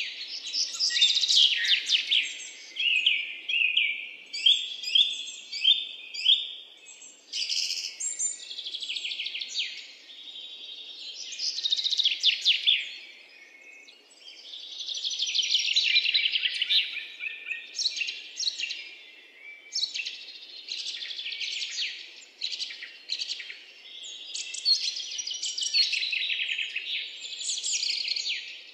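Songbirds singing: runs of rapid, high-pitched chirps and trills, one phrase after another, with a brief lull about halfway through.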